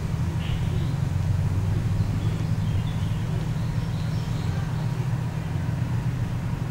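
Steady low rumble with a few faint high bird chirps over it.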